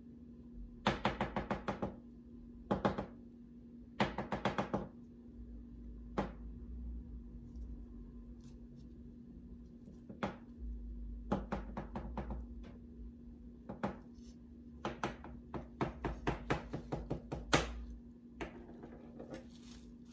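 A knife cutting through chilled cake, its blade tapping the hard surface underneath in short rapid runs of taps, with pauses between the runs.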